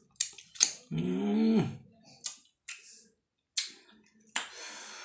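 Mouth sounds of a man eating with his hand: wet lip smacks and clicks while chewing, a short hum about a second in, and a breathy hiss near the end.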